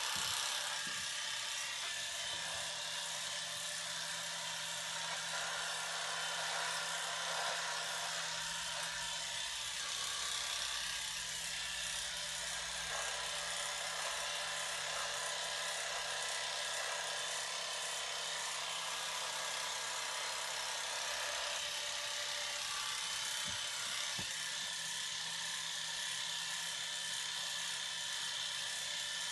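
Electric hair clippers buzzing steadily, the buzz changing slightly in texture now and then.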